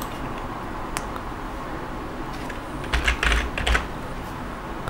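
Typing on a computer keyboard: a quick run of keystrokes about three seconds in, after a single click about a second in.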